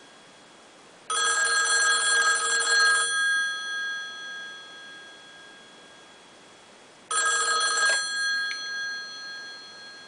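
Western Electric Model 500 telephone's built-in mechanical bell ringing for an incoming call. One full ring lasts about two seconds, then about four seconds later a second ring is cut short after about a second as the call is answered, each ring ringing on briefly as it fades. A faint click follows just after the second ring.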